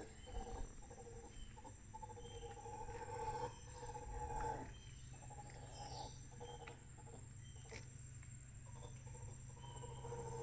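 Mantled howler monkeys roaring faintly, with short high bird chirps now and then.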